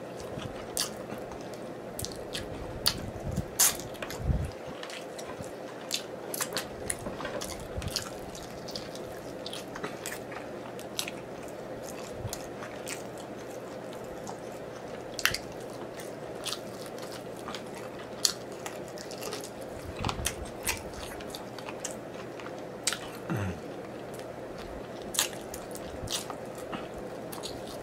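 Close-miked eating: lips smacking and mouth sucking and gnawing meat off sticky chicken wing bones, with many short wet clicks scattered throughout. A faint steady hum runs underneath.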